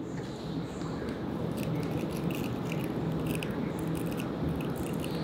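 Metal tweezers picking and rubbing at synthetic lash extension fibers on a lash tray held close to the microphone: a run of small crisp clicks and crackles over steady low background noise.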